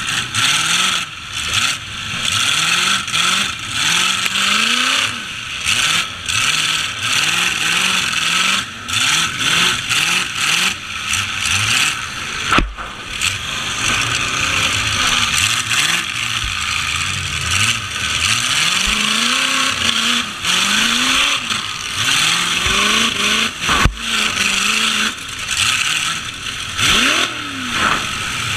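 Demolition derby trucks' engines revving up and falling back over and over. Two sharp crashes of metal on metal come about 12 seconds and 24 seconds in.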